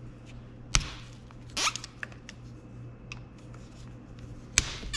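Hand tools working the small cylinder head cover bolts on a motorcycle engine: scattered metal clicks and a short rising scrape, with two sharp knocks, one under a second in and one near the end.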